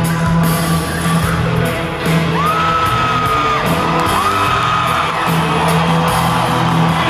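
Live rock band playing in an arena, recorded from among the audience, with a steady low note and two long high notes that each slide up and hold, the first about two seconds in; whoops from the crowd mixed in.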